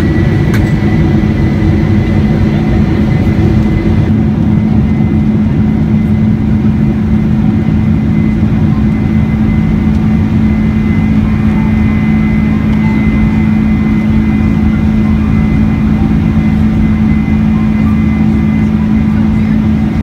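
Boeing 747's jet engines running steadily at high power, heard from inside the cabin: a dense roar with a low hum and a thin fan whine that has just climbed in pitch and then holds.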